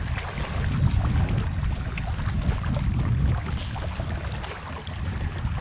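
Wind buffeting the microphone: an uneven low rumble with a fainter hiss above it.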